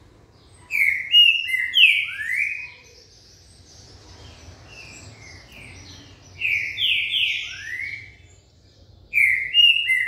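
A caged green-winged saltator (trinca-ferro) singing its loud phrase of short, slurred whistled notes, mostly falling in pitch, three times: about a second in, midway, and near the end. Soft high twittering fills the gaps between phrases.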